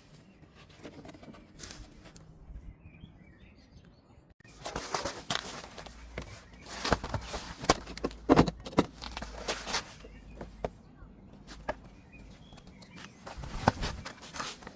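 Handling noise of parts being fitted on a Parkside electric lawnmower: a quiet start, then a busy run of clicks, knocks and rustling, loudest about halfway through, with a few more knocks near the end.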